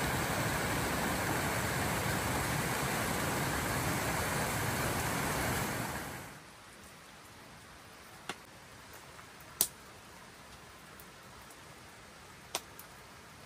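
A loud, even rushing noise that fades out about six seconds in. It leaves a quiet background where a few single raindrops strike a tarp canopy, each one a sharp separate tap.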